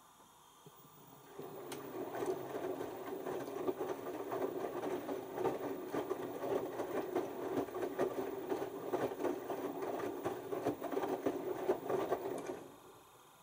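LG TurboWash 6 Motion front-loading washing machine during its first rinse: the drum starts turning about a second in and tumbles the wet laundry and rinse water, a steady churning and sloshing with many small splashes and clicks. It stops again near the end.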